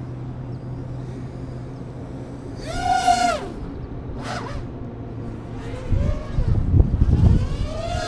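9-inch FPV quadcopter's motors and propellers whining, the pitch swinging up and back down as the throttle is punched about three seconds in and again near the end. Gusty wind rumbles on the microphone from about six seconds in.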